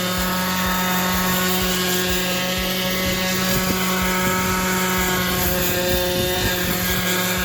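DeWalt DCW210 cordless random orbital sander running steadily as it sands a surface: an even motor hum that holds its pitch.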